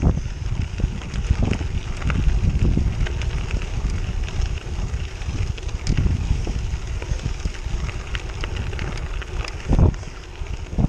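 Wind rushing over the microphone of a bicycle riding on a gravel road, with the tyres crunching over loose gravel and small clicks and rattles from the bike; a heavier bump comes near the end.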